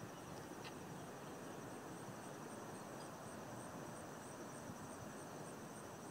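Insects calling steadily from the trees and grass, a high chorus with a pulsing chirp repeating a couple of times a second, over a faint even background rush.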